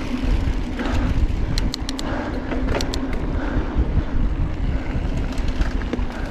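Mountain bike rolling fast along a dirt singletrack, picked up by a handlebar-mounted camera: a steady rumble of tyres and frame over the trail with wind on the microphone. A few sharp clicks and rattles come between about one and a half and three seconds in.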